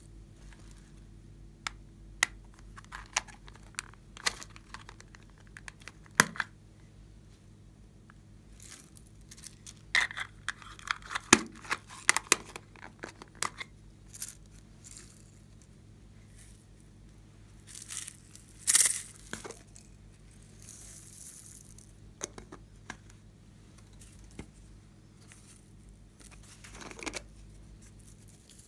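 Slime add-ins being handled and tipped into a glass bowl: plastic containers and sequins making scattered clicks, taps and crinkling rustles. A thick run of clicks comes about a third of the way in and the loudest rustling burst comes about two-thirds through, over a faint steady low hum.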